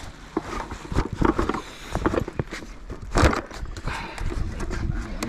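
Irregular scuffs, rustles and knocks from handling a fabric weigh bag and a freshly caught coalfish, loudest about three seconds in.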